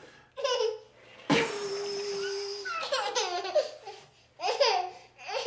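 A toddler laughing in short bursts, with a long, held, high-pitched laughing squeal about a second in.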